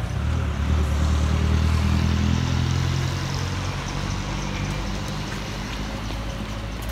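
Low rumble of road traffic under a steady wash of outdoor noise, slowly fading.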